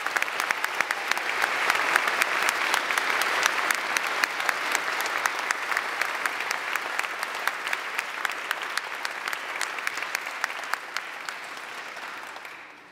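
Audience applauding, the clapping slowly thinning and then dying away near the end.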